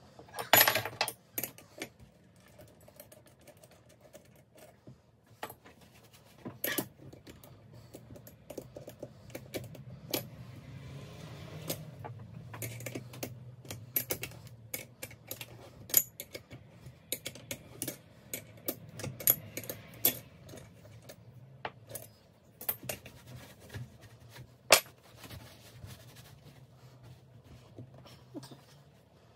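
Irregular metallic clicks and clinks of hand tools and turbocharger parts being handled during a bench teardown: a wrench on the housing bolts, bolts and parts set down on the bench. A low steady hum runs underneath.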